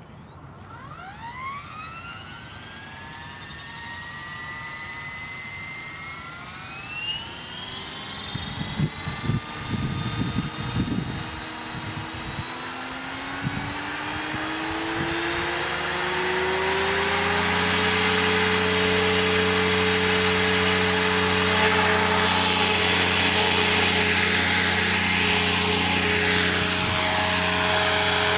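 HobbyKing 500GT electric RC helicopter, a T-Rex 500 clone, spooling up: its motor and gear whine climbs in pitch in steps over about seventeen seconds, then holds steady at head speed with the rotor's buzz as it lifts into a hover. Some low, gusty rumbles come in a third of the way through.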